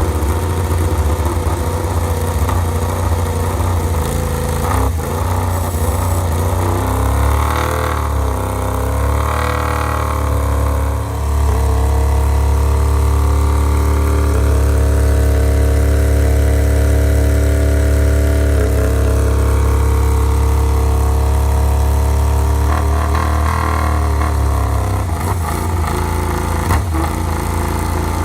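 MotoGP racing motorcycle engine running: idling with a few quick revs up and down about a quarter of the way in, then held at a steady higher speed for several seconds before the pitch slides back down to idle.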